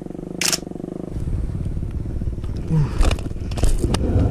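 A steady low buzz that stops about a second in, followed by rustling, scraping and knocking of close handling noise on a body-worn camera, with wind rumbling on the microphone.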